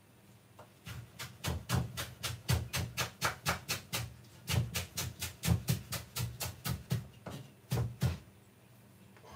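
Knife chopping fresh coriander on a wooden chopping board: a steady run of quick knocks, about four a second, with a short break near the end.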